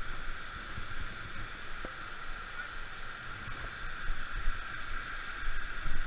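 Steady rush of water pouring over a low dam spillway, with a few low bumps.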